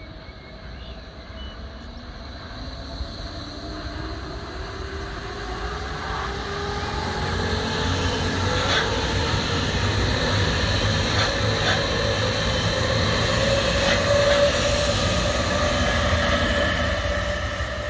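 Berlin S-Bahn class 485 electric train approaching and passing, growing steadily louder, with a motor whine that rises in pitch and a few sharp clacks of the wheels over the rail joints.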